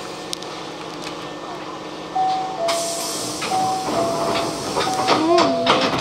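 Electric train standing at a platform: about two seconds in, a sudden loud hiss of compressed air as its pneumatic doors open. After it, a two-note electronic chime repeats, high then low, about once a second.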